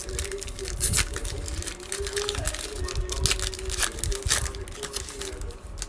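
Plastic wrapping of a Panini Mosaic basketball blaster box being torn open and crinkled: irregular crackling and rustling throughout, over a faint steady hum.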